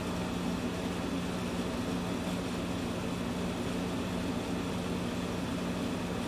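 Window air conditioner running: a steady, even hum with no changes.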